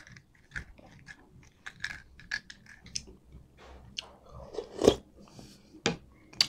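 Close-up eating sounds: wet chewing and mouth clicks, then a loud slurp of kansi beef soup from a spoon about five seconds in, followed by a couple of sharp clicks near the end.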